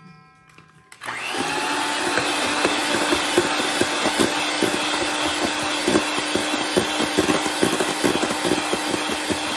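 Electric mixer starting up about a second in and running steadily, whipping pavlova meringue toward stiff peaks, with a constant hum and irregular knocks of the beaters against the metal bowl.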